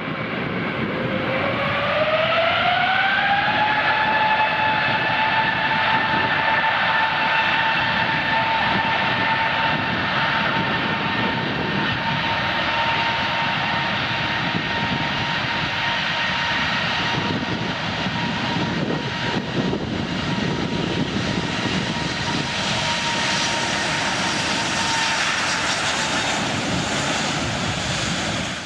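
Airplane engines running loud and steady, with a whine that rises in pitch over the first couple of seconds and then holds level over a constant rushing roar.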